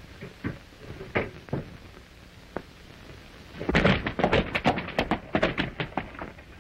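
A few scattered knocks and thuds, then, a little under four seconds in, a loud, rapid run of clattering steps, several a second.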